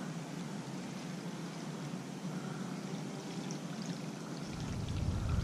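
Faint gurgling and trickling of water, the churn of a Whopper Plopper topwater lure's spinning tail as it is reeled in across the surface. A low rumble joins near the end.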